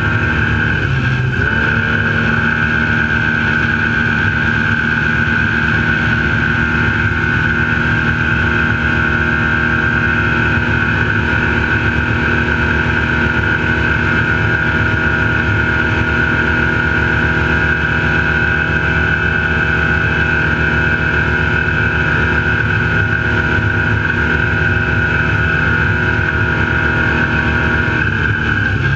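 Off-road Trophy Lite race truck's engine running at steady high revs while driving at speed, with a brief dip in revs about a second in.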